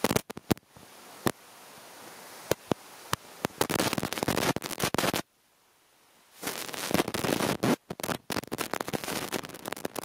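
Handling noise on a handheld camera's microphone: scattered sharp clicks, then two stretches of dense crackling and scraping separated by a sudden, near-quiet gap in the middle.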